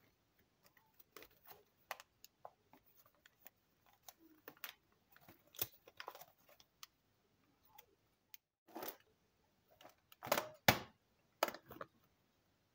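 Plastic vacuum-sealer bag crinkling and crackling as it is handled, in short irregular bursts, with a few louder rustles near the end.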